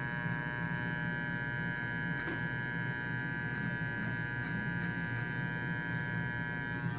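Electric hair clippers running with a steady buzz as they trim a man's mustache and chin.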